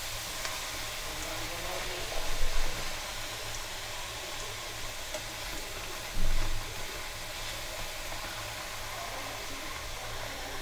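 Potato sticks sizzling steadily in a pan of hot oil during their first light par-fry, stirred with a wire-mesh skimmer, with two louder moments about two seconds and six seconds in.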